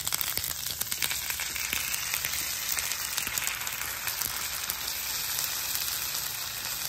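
Butter sizzling and crackling steadily on a hot flat-top griddle as corned beef hash mix is pressed into it inside egg rings.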